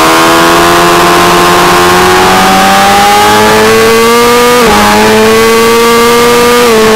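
600cc race motorcycle engine at full throttle, heard from on board, revving high with a steadily rising pitch as the bike accelerates. Two upshifts, one about two-thirds of the way through and one near the end, each briefly drop the pitch before it climbs again.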